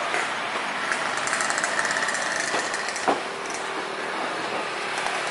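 Jet engine noise of an Airbus A320 airliner landing and rolling out on the runway: a steady rushing noise, with a single sharp knock about three seconds in.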